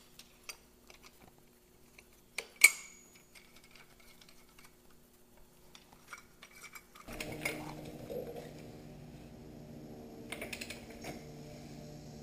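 Metal clutch parts clinking and tapping as a clutch holder tool is fitted onto a Ducati 748's dry clutch, with one sharp metallic clink a couple of seconds in. A steady hum with several tones comes in about seven seconds in.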